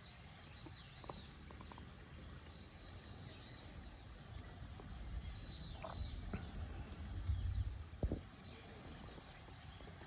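Faint, thin, high whistled bird calls with short sliding notes run through the background. Low rumbling handling noise on the phone's microphone swells about five seconds in and ends with a sharp knock near the eight-second mark.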